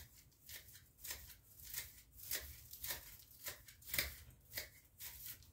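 Scissors snipping off the loose dry bristle ends of a handmade besom: a quick irregular run of short crisp cuts, about three a second.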